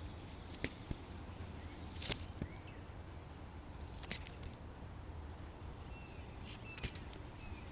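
Quiet outdoor background with a steady low hum, a few scattered sharp light clicks and knocks, and several faint short chirps in the second half.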